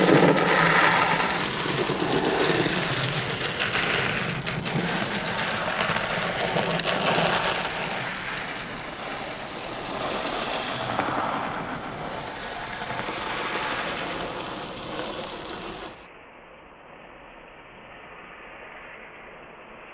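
Minitrains 009 Brigadelok model locomotive running along the layout track: its small electric motor whirring, with wheels clicking on the rails, a smooth-running mechanism. About sixteen seconds in, the sound drops suddenly to a quieter, duller recording of the running.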